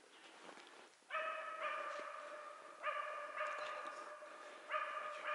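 Hunting laika barking steadily at a moose it has found and is holding at bay. The barking starts about a second in, comes in quick runs that blur together, and keeps going.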